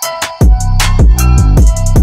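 Background music with a drum beat and deep bass notes that slide down in pitch.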